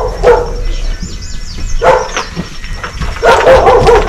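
A dog barking in short bouts, three times.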